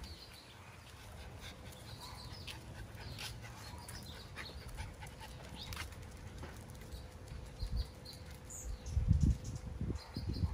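Miniature Schnauzer puppies playing on a paved yard: light scattered clicks and scuffs with short faint high sounds, and a few low bumps about nine seconds in.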